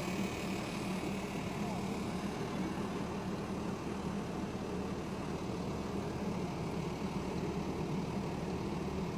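Tractor engine running steadily with an even drone.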